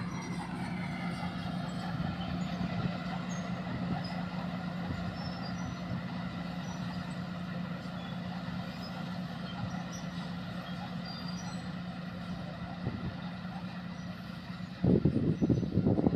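Engine of an old bulldozer, dating from around 1960, running steadily with a constant drone. About a second before the end it turns suddenly louder and rougher.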